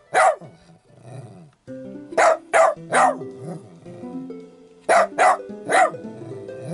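Small Chiweenie-mix dog barking in short, sharp barks: one, then a quick run of three about two seconds in, and another three about five seconds in. Background music with held notes plays underneath.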